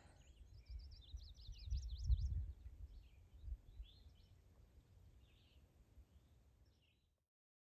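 A songbird sings a quick run of high, rapidly rising and falling notes from about half a second to two and a half seconds in, then gives a few scattered single chirps, over an uneven low rumble that is loudest about two seconds in. The sound cuts off abruptly near the end.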